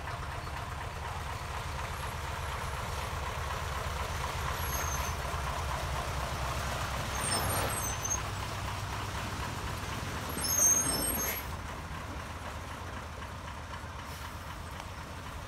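Magirus-Deutz 256 three-axle tipper truck's diesel engine running steadily under load as it climbs a muddy track, with a short, louder burst of noise about ten seconds in.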